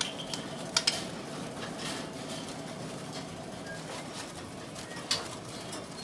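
Caged birds in a bird shop: a few short, sharp chirps or clicks over a steady low background murmur of the kiosk.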